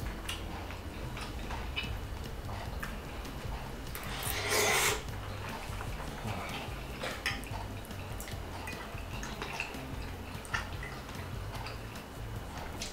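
Metal fork clicking and scraping against a ceramic plate of pasta, with chewing, in scattered short clicks. A louder, longer noisy sound comes about four seconds in.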